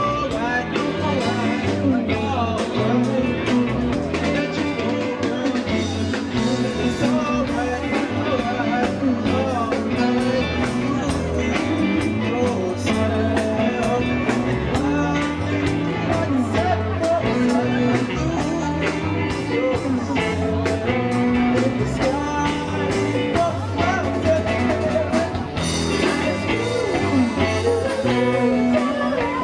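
Live rock band playing a dance medley: electric guitar, drum kit and keyboard, with a singer on a microphone.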